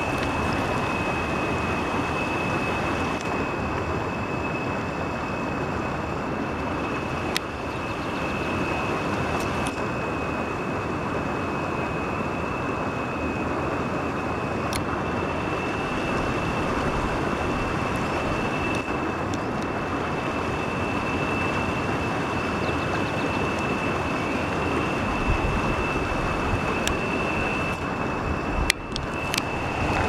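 Steady rush of river water running over rocks and rapids, with a thin, steady high-pitched whine running through it.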